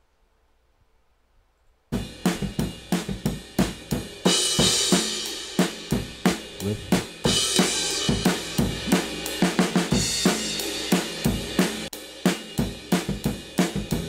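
A recorded drum kit played back on a loop from a drum overhead track, starting about two seconds in: a steady groove of kick, snare and hi-hat with a cymbal crash about every three seconds.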